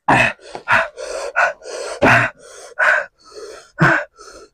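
A person gasping and breathing hard through the mouth, a quick run of loud sharp breaths in and out, from a mouth burning on extreme spicy noodles.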